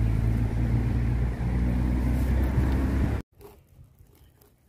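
An engine running steadily with a low hum. It cuts off suddenly about three seconds in, leaving only faint outdoor sound.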